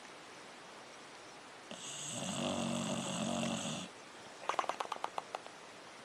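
A sleeping dog snoring: one long snore of about two seconds, followed a moment later by a quick run of about ten clicks.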